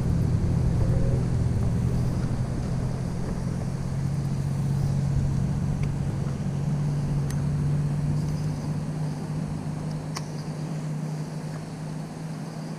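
A steady low motor hum with a few unchanging tones that eases off a little toward the end, with a few faint ticks over it.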